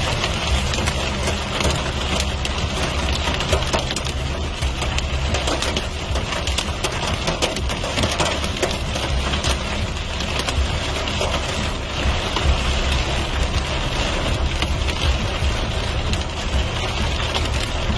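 Heavy storm rain pelting a surface in a dense, unbroken patter, over a steady low rumble.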